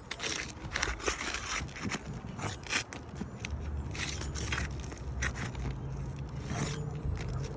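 Flat bar scraping and prying at asphalt roof shingles: a run of irregular scrapes, clicks and crackles.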